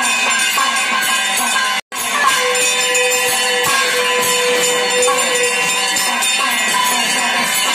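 Temple bells ringing rapidly and continuously during a puja, a dense metallic jangle. A long held note sounds for about three seconds in the middle, and the whole sound cuts out for an instant about two seconds in.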